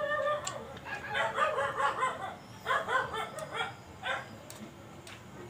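A dog whimpering and yipping: one drawn-out high-pitched whine at the start, then short strings of quick high cries that stop about four seconds in.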